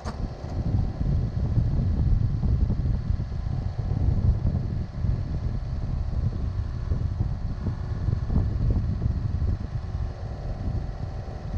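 Excavator's diesel engine running steadily close by, with wind buffeting the microphone.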